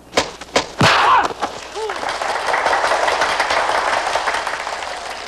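Film fight sound effects: three sharp punch smacks in quick succession and a shout, followed by a crowd shouting and cheering.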